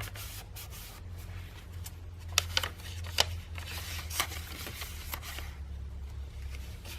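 Paper pages and embellishments of a handmade junk journal being handled and turned: soft rustling and rubbing of paper, with a few sharp ticks a couple of seconds in.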